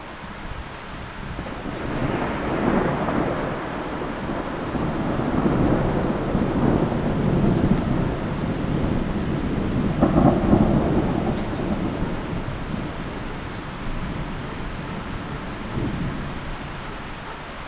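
Rolling thunder from a night thunderstorm: one long, low rumble that swells in several surges, is loudest about ten seconds in, then dies away, over a steady hiss of rain.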